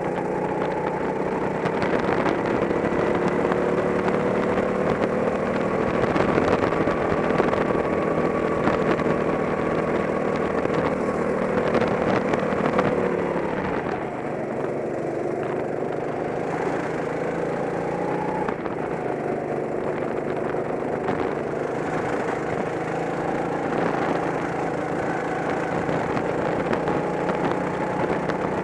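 Go-kart engine heard onboard, running under load: its pitch climbs slowly as the kart speeds up, drops sharply about halfway through as it slows for a tight corner, then climbs again.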